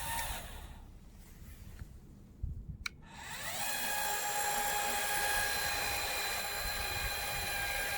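Small electric motor whining as the Vigorun VTC550-90 crawler mower's cutting-deck height is adjusted by remote. A whine fades out just after the start, a click comes near three seconds in, then the whine rises to a steady pitch, holds for about four seconds and starts to fall at the end.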